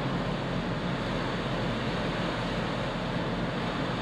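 Steady rush of wind across the open deck of a ferry under way, with the low, even drone of the ship's engines and funnel running beneath it.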